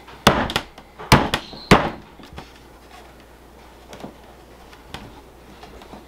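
Sharp wooden knocks and clunks of a wooden box being handled and set against a table: three loud ones in the first two seconds, then a few lighter taps.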